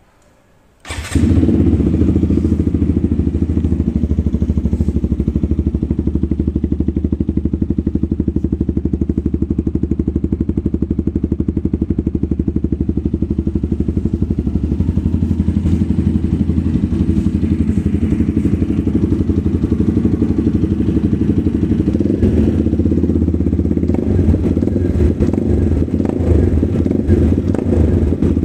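TVS Apache RTR 200 4V motorcycle's single-cylinder engine, fitted with an aftermarket M4 exhaust, starting about a second in and then idling with a steady, even exhaust beat. The idle turns rougher and less even over the last few seconds.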